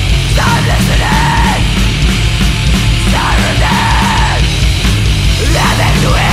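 Loud crust-punk music: distorted guitars, bass and drums in a dense wall of sound, with a shouted vocal that comes in three lines.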